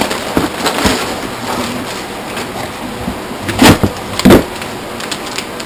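Packaging being handled as plastic supplement tubs and foil packets are taken out of a cardboard box: rustling with a few knocks, the two loudest close together about four seconds in.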